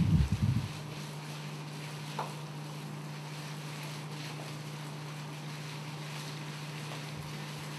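Steady low electrical hum over faint hiss, with a short low rumble in the first half-second and a faint click about two seconds in.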